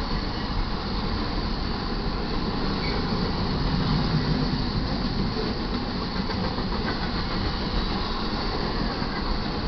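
Cars of a BNSF intermodal freight train rolling past a grade crossing: a steady rumble and rattle of steel wheels on the rails.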